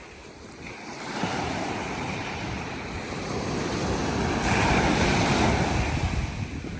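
Surf on the beach: a wave rushes in, swelling to its loudest about two-thirds of the way through, then easing off.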